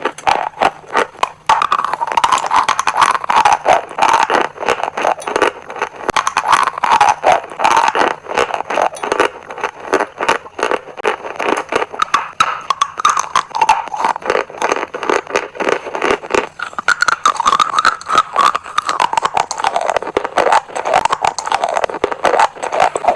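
Chalk being bitten and chewed close to the microphone: a dense, continuous run of crisp crunches and crackles.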